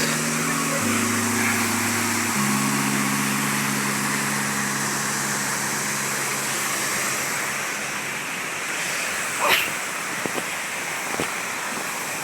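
Steady rush of water pouring through open dam gates. Low held background tones change a few times and fade out about seven seconds in, and a few short sharp sounds come near the end.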